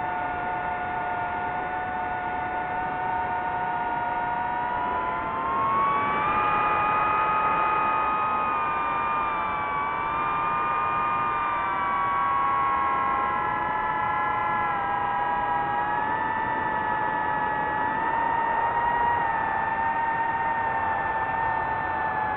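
DJI FPV drone's motors and propellers whining in flight: several steady tones together, rising in pitch about five seconds in, then easing back down.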